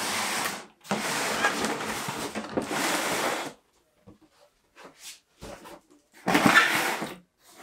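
Cardboard sliding and scraping as a box is pulled out of its printed cardboard sleeve: a short rub, then a longer scrape of about two and a half seconds, a few light taps, and another scrape near the end.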